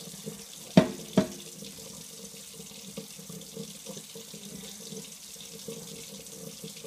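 Tap water running steadily into a kitchen sink while a ceramic bowl is washed under it. About a second in there are two sharp knocks, half a second apart, as the bowl bumps the sink.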